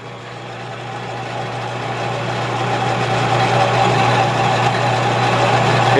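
Metal lathe running with its cutting tool turning a taper on a wooden handle, the cutting noise growing steadily louder; a steady motor hum underneath.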